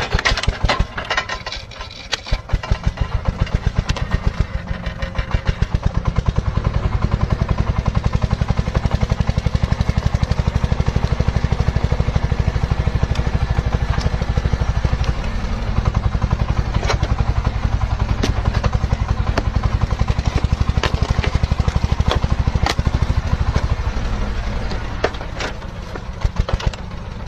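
Heavy excavator's diesel engine running steadily, with sharp knocks and cracks now and then.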